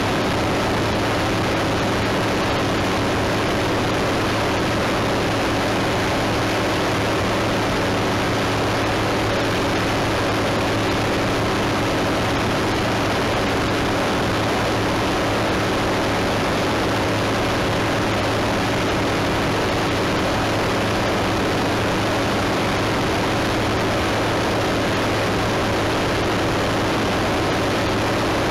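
Steady drone of a small propeller aircraft's engine at constant power, mixed with loud rushing airflow, unchanging throughout.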